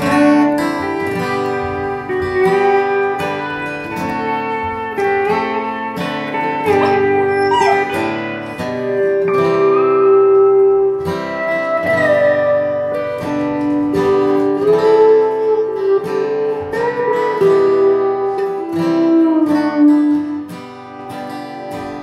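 A country-style string band starts abruptly on an instrumental tune, with acoustic guitar strumming under a sustained, sliding melody line.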